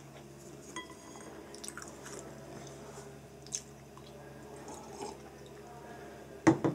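A person chewing food at a table, with a few light clicks as chopsticks are laid on a porcelain bowl. Near the end comes a loud short double knock as a ceramic tea cup is handled.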